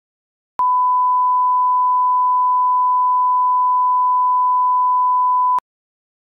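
1 kHz line-up reference tone that accompanies colour bars in a video leader, used to set audio levels: a single steady beep about five seconds long that starts and stops abruptly.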